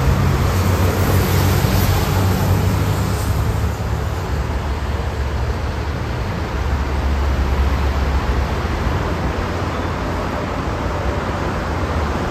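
Jet engines of a twin-engine widebody airliner climbing away after takeoff, heard as a low, steady rumble. The higher hiss drops away a few seconds in as the aircraft recedes.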